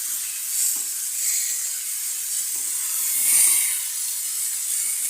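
Sauced ramen-noodle spaghetti sizzling as it flash-fries in a little hot grease in a pot: a steady high hiss that swells briefly a few times.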